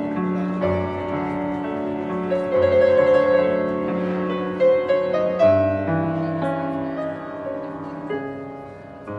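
Estonia grand piano played solo: a slow, lyrical melody over held bass notes, swelling a little in the middle and growing softer near the end.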